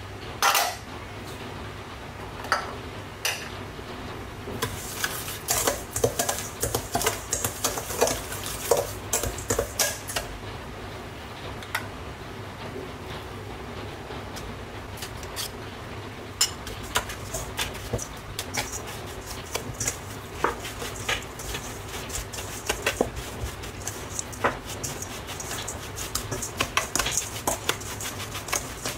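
Metal spoon scraping and clinking against a stainless steel bowl as it stirs a gritty dry mix of sugar, salt, chili flakes and shrimp paste. The scrapes are irregular and come in quick runs, busiest in the second half.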